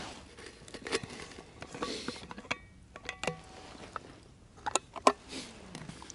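A thermos and cup being handled for tea: scattered knocks, scrapes and light clinks, a few of them ringing briefly. The sharpest knock comes about five seconds in.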